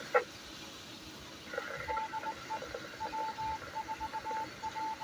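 Morse code coming through an amateur radio: a single steady beep keyed in short and long elements, starting about two seconds in, over faint static. A sharp click with a quick falling chirp comes just after the start.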